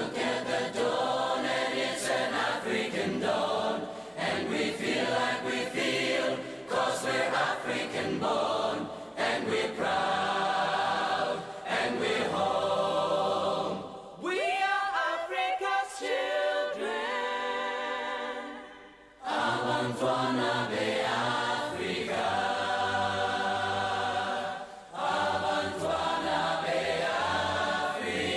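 A choir singing as soundtrack music. Roughly halfway through, the fuller choir drops away for a few seconds while a single voice sings alone, its pitch sliding, before the choir comes back in.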